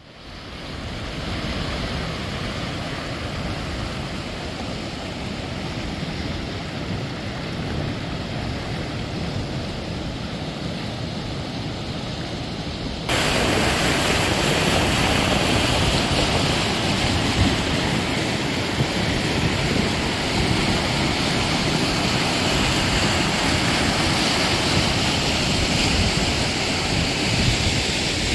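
Whitewater river rapids rushing steadily. About halfway through the rush abruptly becomes louder and brighter.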